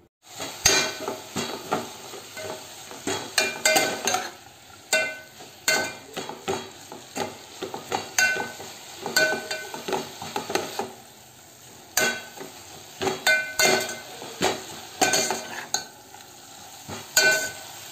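Metal spoon stirring mint leaves frying in oil in a metal pot: repeated scrapes and ringing clinks of the spoon against the pot, over a light sizzle.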